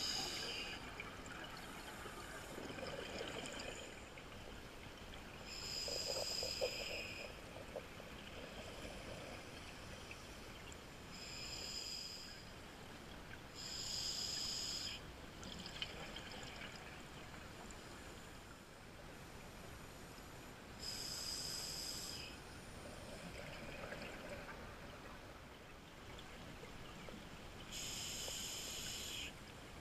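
Scuba regulator breathing heard underwater: bursts of exhaled bubbles, about six of them, each about a second long and a few seconds apart, over a faint steady hiss.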